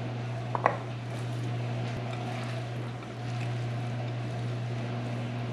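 A steady low hum under a short clatter about half a second in, then soft sounds of hands tossing cubed raw fish and chopped vegetables in a glass bowl.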